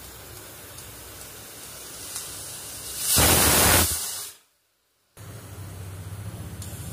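Pressure cooker venting steam: over a steady background hiss, a loud burst of steam hissing from the weight valve starts about three seconds in and lasts under a second before fading. The sound then cuts out completely for about a second, and a steady low noise returns.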